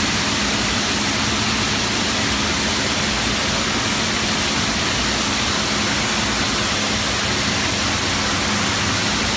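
Steady rushing noise of a running cooling tower, with a low steady hum underneath.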